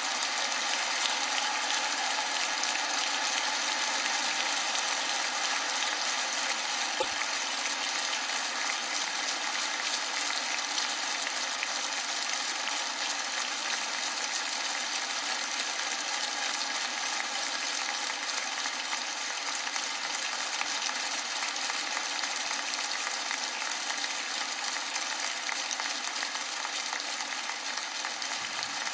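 Steady, sustained audience applause, a dense even crackle of many hands clapping with no break.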